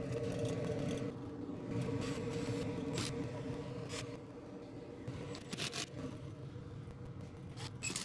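Rooftop gas pack unit running with a steady hum after relighting, while its access panel is screwed shut with a cordless drill: short runs of the drill and several sharp clicks.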